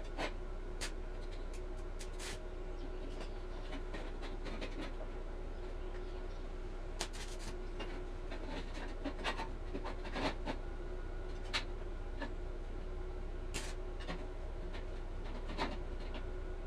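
Irregular scratching and rubbing strokes with scattered light clicks, like hand work on a material, over a steady low electrical hum.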